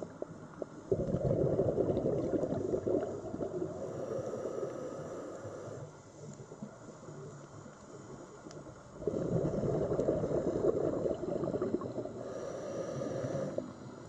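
A scuba diver breathing out underwater: two long bursts of bubbling exhaust from the regulator, each four to five seconds, the second starting about eight seconds after the first.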